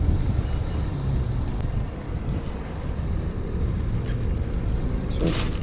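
Steady low rumble of vehicle noise, with a short rustling hiss near the end.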